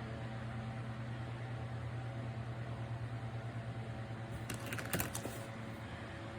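Small USB desk fan being handled: a steady low motor hum, and a quick run of plastic clicks and taps about four and a half to five seconds in.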